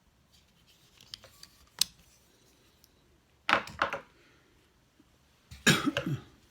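Knives and sharpening gear being handled: a sharp click about two seconds in, then two short bursts of clattering and rubbing.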